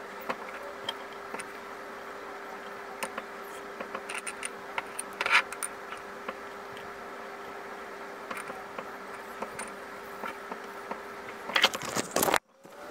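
Light clicks and clinks of metal rings being set on and moved about a wooden slice jewellery stand, over a steady background hum. A louder click comes about five seconds in, and a quick cluster of handling knocks comes near the end as the camera is picked up.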